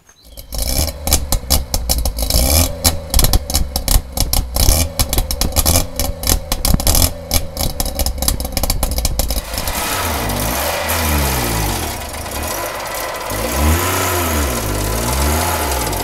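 DKW 1000 S three-cylinder two-stroke engine running through its new exhaust, heard close to the tailpipe. For the first nine seconds or so it sounds choppy and uneven. It then settles to a steadier note, and the revs rise and fall twice as the throttle is blipped.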